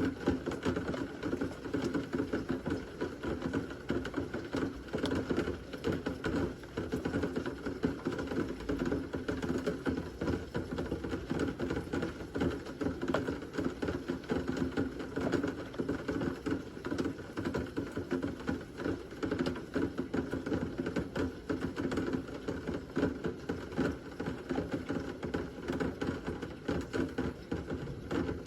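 Heavy thunderstorm rain pattering steadily, a dense, even rattle of drops with no thunder heard.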